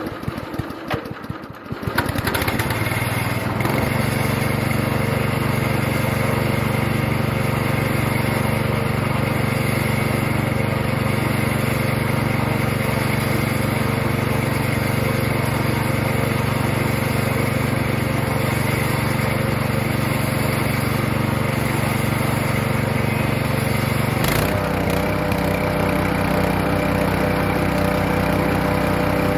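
Hecht 6208 wood chipper's engine starting up, running unevenly for about two seconds, then settling into a steady run. Its low note changes about twenty-four seconds in.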